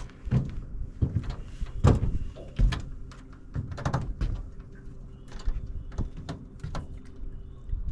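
Irregular knocks and thumps of fishing gear being handled in a boat, over a low wind rumble and a faint steady hum.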